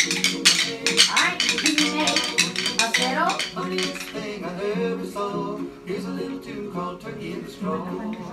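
A group of young children tapping rhythm sticks together, a ragged clatter of clicks that thins out after about four seconds, over music.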